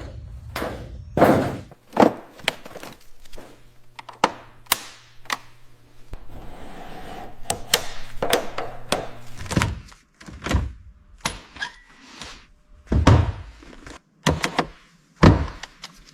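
Car restoration work: an irregular string of thunks and knocks, with heavier thuds about a second in and near the end, over a low hum that stops about halfway.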